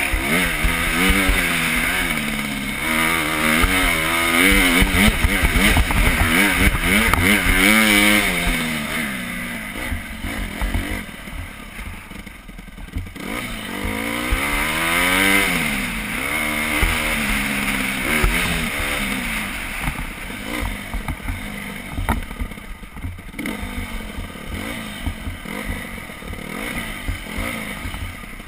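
Dirt bike engine revving up and down as the throttle is opened and closed, pitch rising and falling again and again, with rough rumble and wind noise on the helmet-mounted microphone. It is loudest a few seconds in and drops back to a lower, off-throttle sound around the middle and again near the end.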